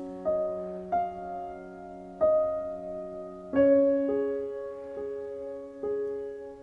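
Background music: slow solo piano, notes and chords struck about once a second, each ringing out and fading.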